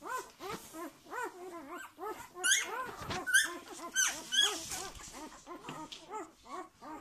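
Newborn yellow Labrador Retriever puppies, a week old, whimpering and squeaking as they crawl over one another. Many short rising-and-falling cries overlap several times a second, with a few higher, louder squeals around the middle.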